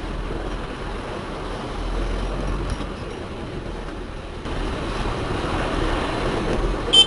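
Steady running noise of a vehicle heard from inside the cab: a low engine hum under road noise, with one short sharp click near the end.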